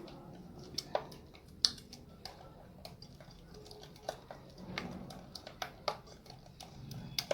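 Scattered light clicks and taps, irregularly spaced, of a utensil against a mixing bowl while melted butter and oil are added to beaten eggs and sugar.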